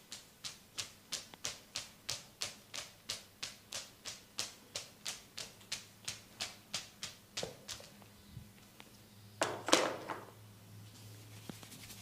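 Percussive massage: hands striking the body in a steady beat of about three taps a second, which stops about two-thirds of the way through. A louder, brief burst of slaps follows a little later.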